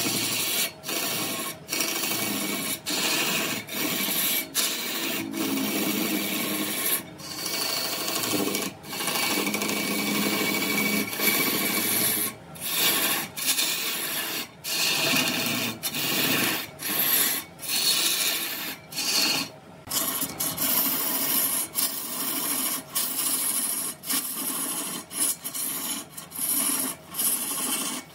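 Wood being abraded by hand in repeated rough, scratchy strokes, roughly one a second, with short breaks between strokes.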